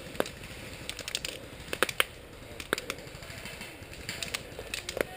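Scattered single sharp cracks and clicks of airsoft fire, BBs being shot and striking nearby, a dozen or so at uneven intervals, some in quick pairs.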